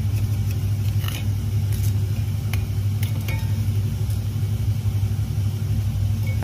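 Steady low hum with a few faint, light clicks.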